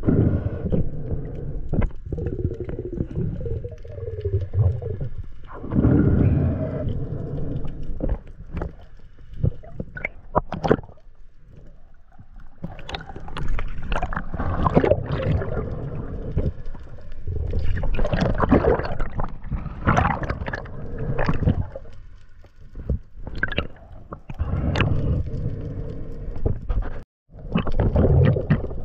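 Water gurgling and sloshing around a spearfisher's underwater camera as he swims, surfaces and dives again: uneven surges and splashes, with a brief dropout near the end.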